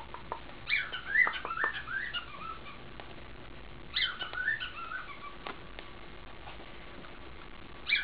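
A galah (rose-breasted cockatoo) chattering in two short bouts of quick squeaky chirps, about a second in and again about four seconds in, with a few light clicks between.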